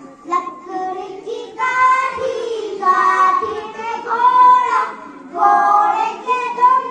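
Children singing a song in short phrases with brief pauses between them.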